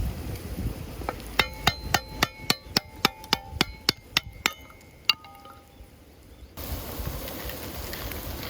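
A utensil tapping rapidly against a ringing metal or ceramic vessel, about three clinks a second for around three seconds, with one more clink shortly after. Outdoor wind hiss comes up near the end.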